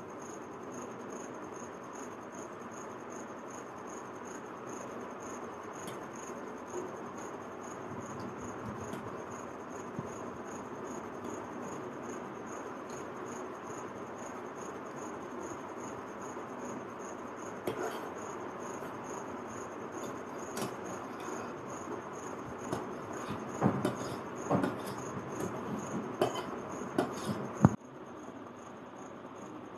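A fork clinks and scrapes on a steel plate in a run of sharp, irregular clicks, starting past the middle and loudest just before the end, as a child eats noodles. Under it runs a steady hiss and a constant high trill.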